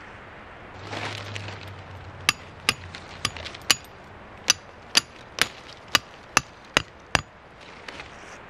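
Hammer driving a plastic tent stake into forest ground: eleven sharp strikes, four then a short pause then seven, about two a second. A rustle of brush and leaves comes just before the strikes.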